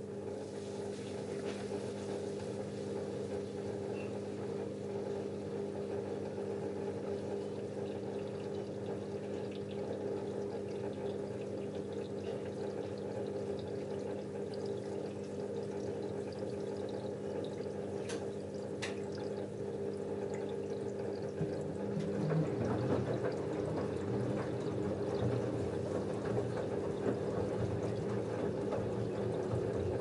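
LG F10A8HDS5 front-loading washing machine with water rushing in its drum over a steady hum. About 21 seconds in the drum starts turning and the sound grows louder and rougher as the wet denim load tumbles.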